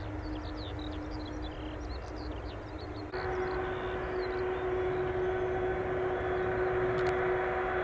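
Airbus Beluga A300-600ST's General Electric CF6 turbofans running as the freighter rolls slowly along the runway: a steady engine whine over a low rumble. About three seconds in the sound suddenly gets louder and the whine jumps to a higher pitch.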